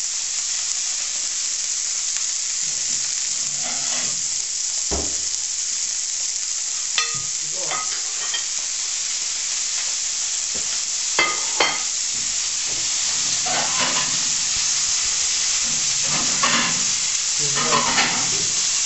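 A piece of beef rump searing in a very hot frying pan on a gas flame, with a steady sizzle. A few sharp clicks and knocks sound over it, once about a third of the way in and twice a little past the middle.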